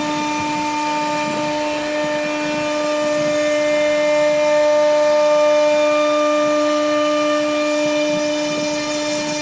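CNC router spindle running steadily with a constant whine while its bit cuts a groove in a wooden board, with a rough cutting noise underneath.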